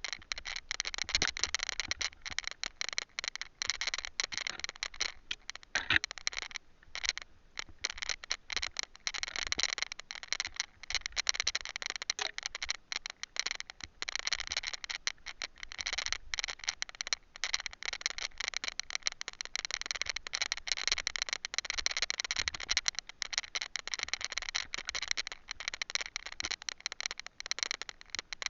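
Camera rattling in its mount while riding a rough trail: a continuous, dense clatter of small knocks and clicks.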